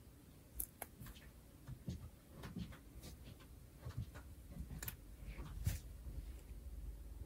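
Faint, irregular light clicks and rustles in a quiet room, about one or two a second.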